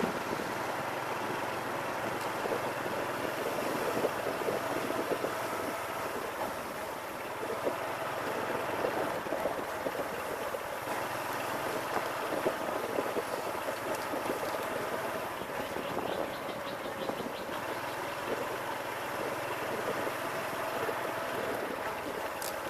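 Motorbike engine running steadily while riding, with wind and road noise mixed in.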